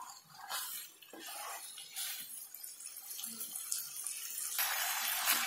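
Chicken and onion masala sizzling in a nonstick kadai, with a few light scrapes of a wooden spatula stirring it in the first couple of seconds. A louder, steady sizzle comes in suddenly near the end.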